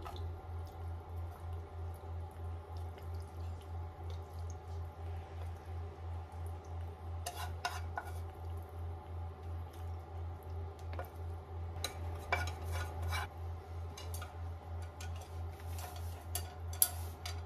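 Chopsticks clicking and scraping against a metal frying pan as marinated vegetables and sauce are pushed out of it, in a few short clusters, with one sharp tap near the end. A steady low hum pulses underneath throughout.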